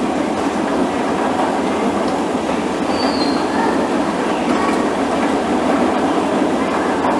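Escalator running: a steady mechanical rumble and clatter, with a brief high squeak about three seconds in.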